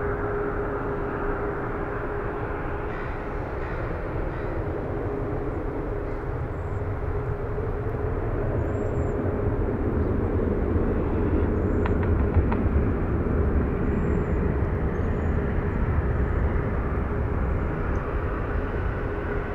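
Boeing 737-800 jet engines on departure: a steady jet rumble with a constant hum, swelling a little toward the middle and then holding.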